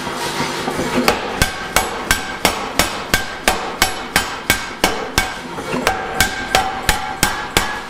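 Power hammer pounding a glowing steel block held in tongs. The blows start about a second in and come about three a second, with a brief pause near the middle, and each leaves a short metallic ring.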